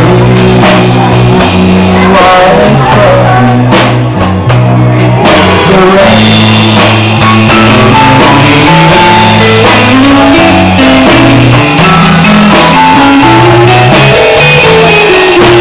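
Live country band playing a slow ballad: electric guitar, drum kit and keyboard, with a man singing into a microphone through the PA. Loud throughout.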